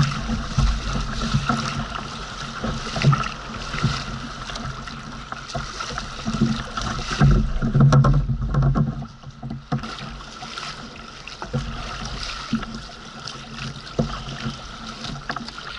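Sit-on-top fishing kayak being paddled through choppy water: paddle blades dipping and splashing, and water sloshing against the plastic hull, in irregular surges.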